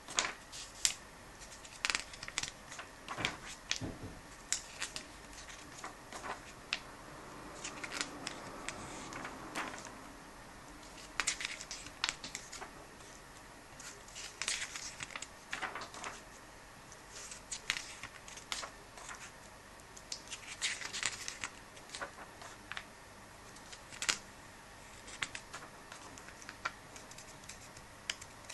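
Pages of a comic book being turned by hand: paper rustling and flapping, with sharp ticks and taps between the page turns.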